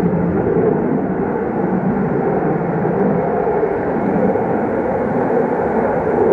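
Sukhoi Su-57 fighter jet engines making a steady, loud rush of jet noise.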